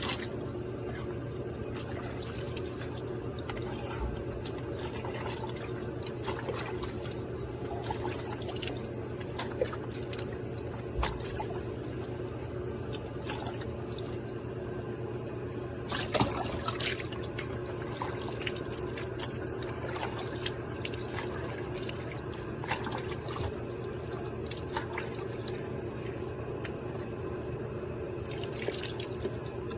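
Water running steadily from a shower hose while a dog is washed, with a low steady hum underneath and occasional small knocks and splashes.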